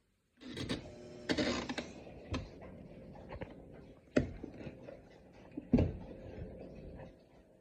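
Kenmore Ultra Wash dishwasher working: a mechanical whir with a steady hum, broken by several sharp knocks and clatters, fading near the end.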